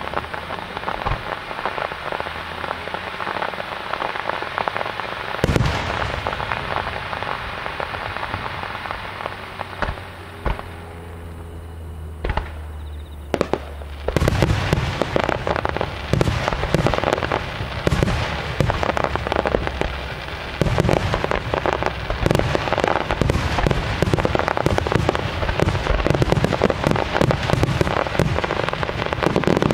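Fireworks finale. First comes a dense crackling with one loud bang about five seconds in. It thins to a couple of single bangs, then from about halfway a rapid barrage of aerial shell bursts bangs on without a break.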